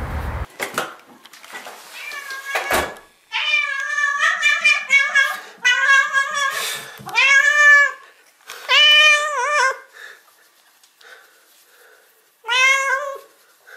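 A domestic cat meowing over and over in greeting, a string of long, drawn-out meows that rise and fall in pitch, then a pause of a few seconds before one more meow near the end.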